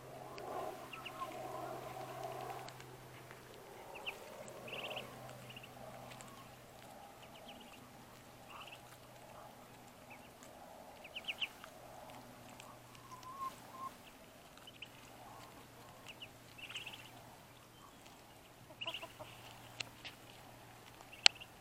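Muscovy ducklings peeping: short, high calls, singly or in quick little runs, scattered through. A lower, softer call sounds in the first few seconds, and a single sharp click comes near the end.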